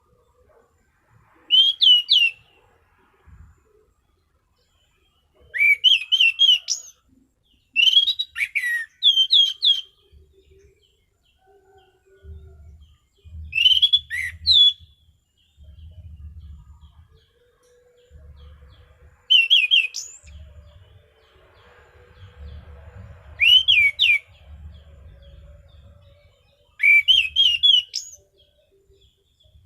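Anis cendana (orange-banded thrush) singing in its full, vigorous song: seven short, sharp bursts of rapid whistled notes a few seconds apart, with a faint low rumble in the background.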